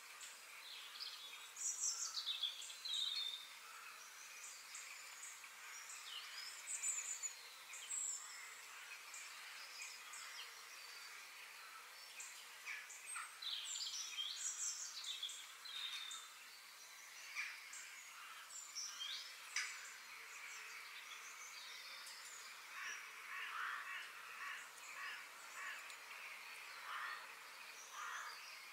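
Birds chirping and singing: many short, high calls and quick whistled glides, scattered throughout, over a faint steady hiss.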